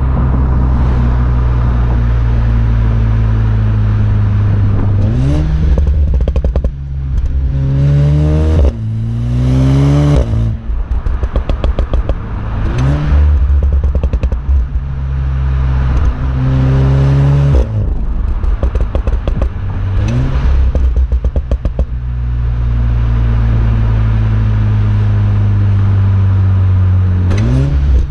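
Volkswagen Golf 7R's turbocharged four-cylinder exhaust while driving: a steady cruising drone, then several pulls with rising revs cut off by shifts. Between the pulls, runs of rapid crackling and popping on the overrun come from engine software reprogrammed for overrun burble.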